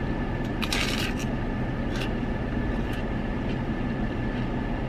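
Steady low rumble of a car cabin with the vehicle running, and a short wet licking sound about a second in as a soft-serve ice cream cone is licked, followed by a couple of faint clicks.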